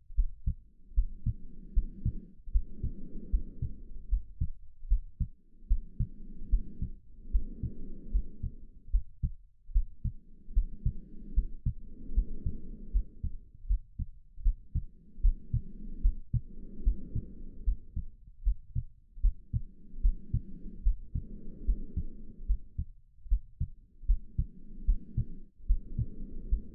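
Slow, steady breathing, each breath a soft in-and-out whoosh about every four and a half seconds, over a continuous heartbeat of low, regular thumps.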